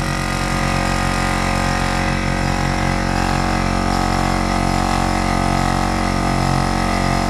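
Gobege heavy-duty portable air compressor running steadily while it pumps up a large truck tire through its hose. It has a fairly low, muffled drone rather than a high-pitched whine.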